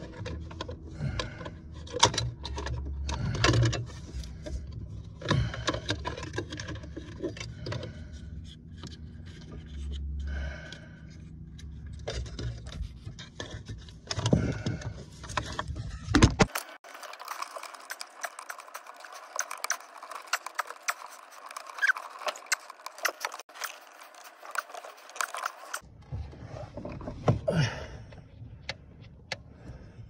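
Hands working by feel at the pedal bracket under a car's dashboard, handling small plastic and metal parts: scattered clicks, taps, scrapes and rustles. From about halfway to near the end the sound turns thin, with no low end.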